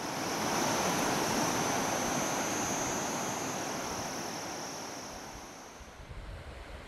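River water rushing over stones and gravel in a shallow, fast-flowing stretch: a steady rush that fades down near the end.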